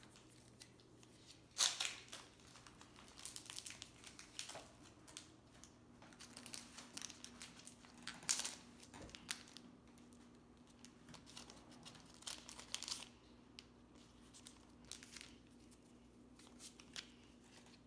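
Foil wrapper of a Pokémon trading-card booster pack being torn open and crinkled in the hands, in short scattered crackly bursts.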